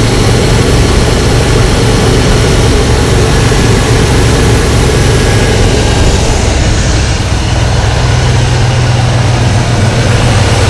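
Ford Bronco engine idling, heard close up in the open engine bay: a steady low hum under a loud, even rush of noise.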